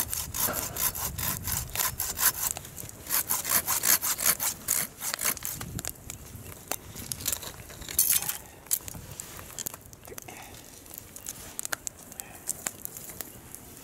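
A small hand saw cutting through a wooden stick in quick back-and-forth strokes for about six seconds. Then come a few scattered strokes and scrapes of the blade on the wood.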